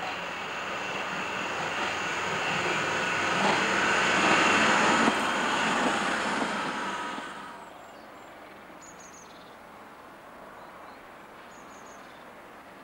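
Pacer-type diesel railbus passing close by, its engine and wheels growing louder to a peak about four to five seconds in. The sound cuts off suddenly near eight seconds, leaving a quieter steady outdoor background with a few short high chirps.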